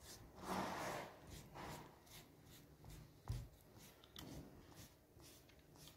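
Silicone pastry brush spreading melted butter and oil over a thin sheet of rolled dough: faint soft swishing strokes, with a short tap about three seconds in.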